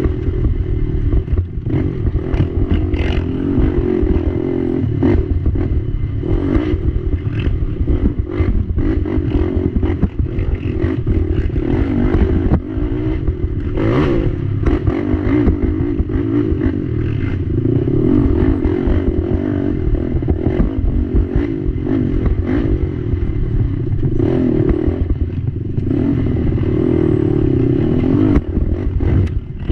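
ATV engine running under throttle, heard close up from the machine, with frequent short knocks and clatter from the chassis and suspension over the rough trail.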